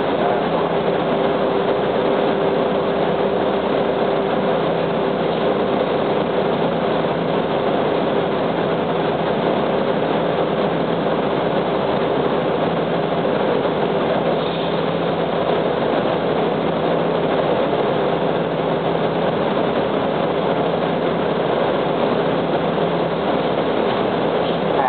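Diesel engine of a 1998 UD KC-UA460LSN city bus idling steadily while the bus stands at a stop, heard from inside the passenger cabin.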